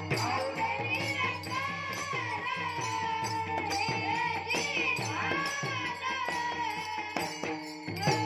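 Boys' voices singing a Warkari bhajan with long held, gliding notes, over a steady drone, with small brass hand cymbals (taal) struck in a steady beat.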